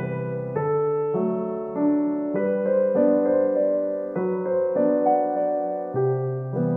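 Background piano music, a melody with chords in which the notes change about every half second.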